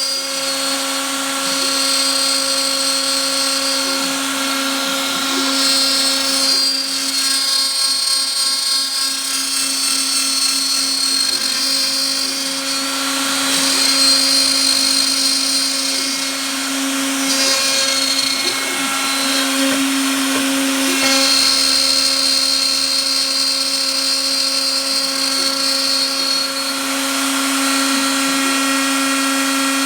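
Home-made CNC router running: a steady motor whine throughout, with higher whining tones that shift and drop out every few seconds as the machine moves.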